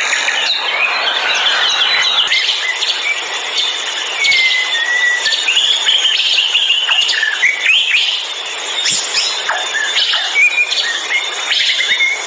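Many birds chirping and whistling at once in a forest, short overlapping calls and quick pitch glides, over a steady background hiss.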